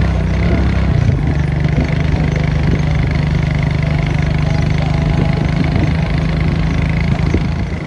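A small engine running steadily at a constant speed, easing off a little near the end.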